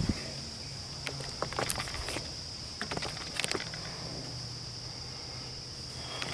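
Steady high-pitched insect chorus, with scattered clicks and knocks over it.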